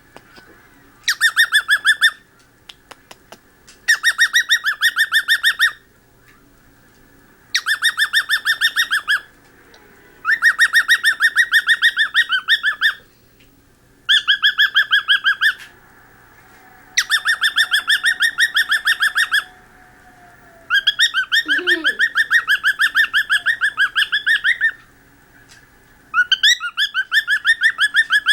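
Cockatiel singing: about eight bouts of fast, rapidly repeated chirping notes, each bout one to four seconds long, with short pauses between.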